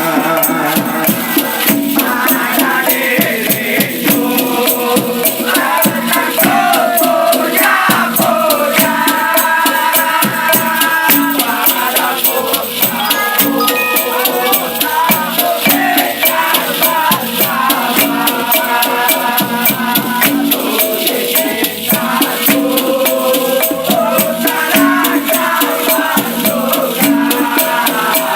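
Musical interlude of a Malay love song between sung lines: a melody over a steady, quick shaker rhythm.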